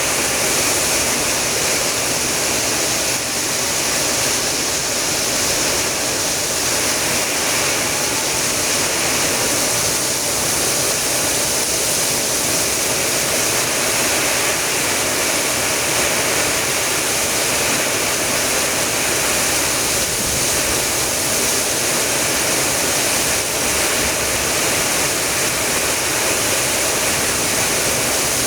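Heavy rainstorm downpour, rain falling in a loud, steady, unbroken rush.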